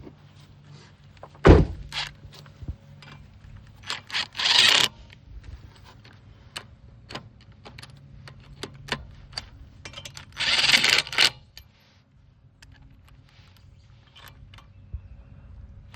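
Lug nuts being put back on a car wheel by hand: metal clinks and a heavy thunk about a second and a half in, with two rasping bursts of about a second each.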